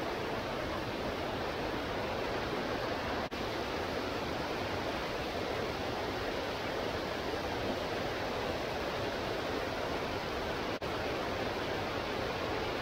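Water pouring over a low concrete weir into a river, a steady rushing that cuts out for an instant twice.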